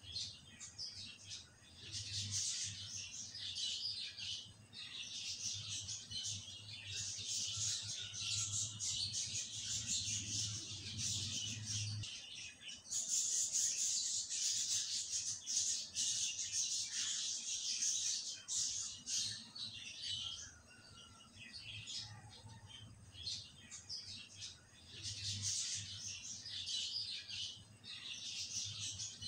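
Butter simmering into ghee in a pan, sizzling and crackling with many fast small pops as its water boils off and the milk solids brown. A low steady hum under the sizzle stops about twelve seconds in, where the sound changes sharply.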